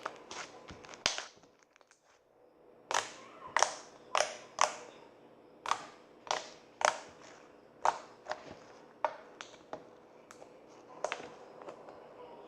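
Slime being worked by hand, giving a series of sharp, short pops and clicks, about a dozen, at irregular intervals with a brief pause early on.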